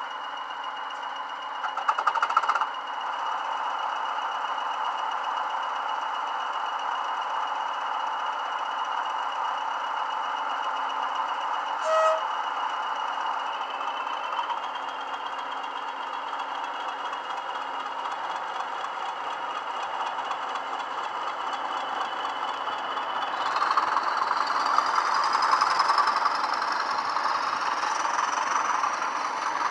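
Digital sound-decoder recording of a pair of Class 20 diesel locomotives, played through the models' small speakers: the engines run at idle with a steady turbocharger whistle. There are short bursts about two seconds in and near the middle. From about 23 seconds the engines power up, the whistle rising and the running growing louder as the locomotives pull away.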